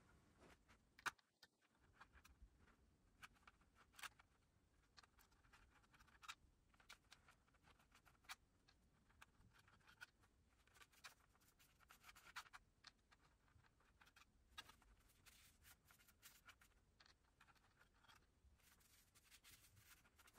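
Near silence with faint scattered clicks and scrapes of a plastic stick tapping and rubbing in a plastic DIY-candy tray, the sharpest click about a second in.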